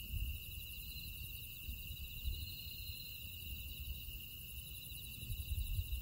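Grass insects chirping in a steady night chorus: several trills at different high pitches, one of them pulsing fast and very high. An irregular low rumble sits under it and grows stronger near the end.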